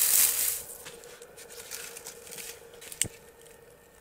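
Dry grass rustling and crackling as hands bunch it into tinder, loudest in the first half second, then lighter rustles and small clicks from stick tinder being handled. One sharp knock about three seconds in.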